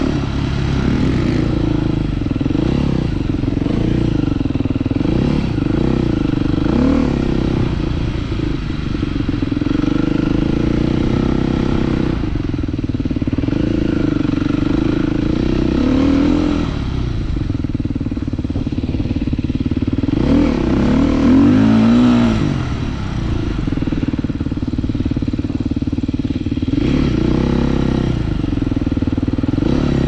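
Husqvarna 450 single-cylinder four-stroke motorcycle engine heard from on the bike as it is ridden over gravel, the revs rising and falling with the throttle, with a quick run of up-and-down revving about two-thirds of the way through.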